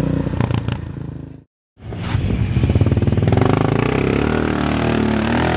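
Side-by-side UTV engine running as the machine crawls over rock, with a few sharp clicks early on. The sound drops out briefly about a second and a half in, then the engine comes back with a throbbing, wavering note.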